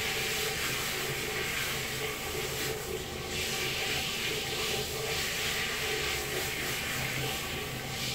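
Shower spray running with a steady hiss, dipping briefly twice: about three seconds in and again near the end.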